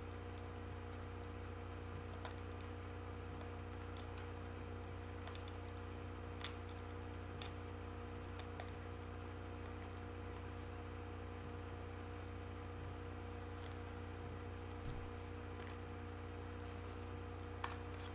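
Faint, scattered clicks and light crinkles of a gift's wrapping paper and tape being picked at by hand, a few seconds apart, over a steady low electrical hum.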